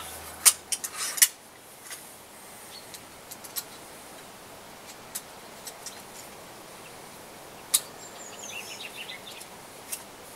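MX-80 pistol crossbow: a cluster of sharp snaps and clicks about half a second to a second in, and one more sharp click later. A bird chirps briefly near the end.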